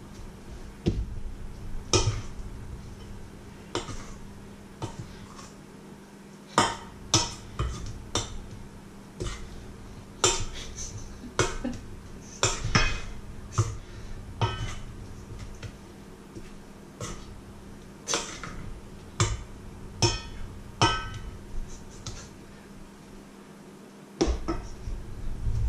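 A metal spoon clinking and scraping against a stainless steel mixing bowl while stirring, in irregular sharp clinks, some ringing briefly, over a steady low hum.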